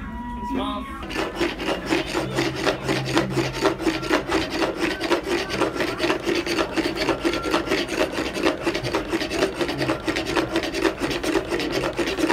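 Wooden katsuobushi shaving box (kezuriki) in use: a block of dried bonito is pushed rapidly back and forth across the plane blade, giving a steady rasping scrape at about four strokes a second that starts about a second in.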